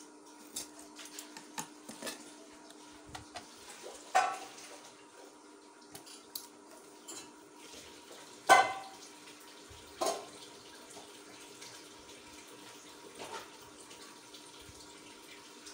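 Handling noise as a garment and small metal sewing tools are moved about: scattered light clicks and three sharp, briefly ringing clinks, the loudest about halfway through, over a faint steady hum.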